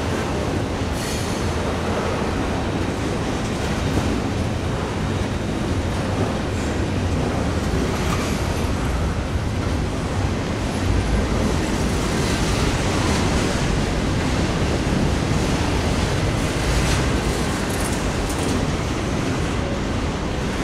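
Double-stack intermodal freight train rolling past at close range: a steady rumble and rattle of steel wheels and well cars on the rails. A few brief high-pitched sounds come now and then.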